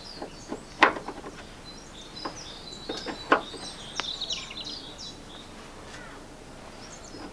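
Small birds chirping and singing throughout, with a few sharp metallic clicks and knocks, the loudest about a second in and another a little after three seconds, from a large screwdriver being forced against a rusted, seized door-hinge screw.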